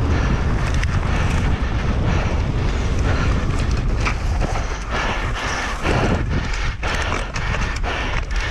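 Wind buffeting the action camera's microphone as a mountain bike runs fast down a dry dirt trail, with the tyres on loose dirt and the bike clattering in sharp knocks over bumps, more often in the second half.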